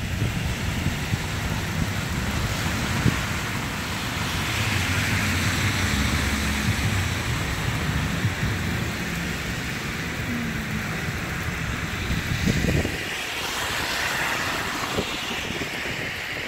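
Street traffic on a slushy road: car tyres hissing through wet slush as vehicles pass, swelling twice. Wind buffets the microphone with a low rumble that stops about thirteen seconds in.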